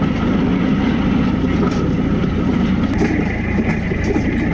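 New Holland TL90 diesel tractor running under load with the power take-off driving a hay tedder. A steady higher whine joins in about three seconds in.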